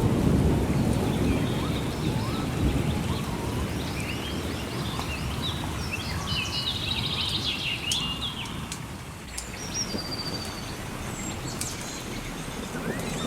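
Rolling thunder rumbling low and dying away over the first several seconds, under a steady hiss of rain. Birds chirp through the middle, and scattered sharp crackles sound.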